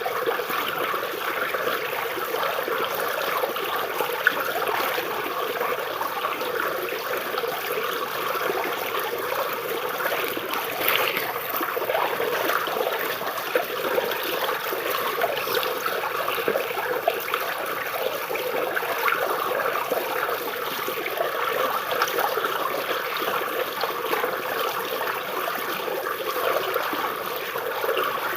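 Stream water trickling and babbling as it flows under tree roots, a steady splashing with small burbling flickers.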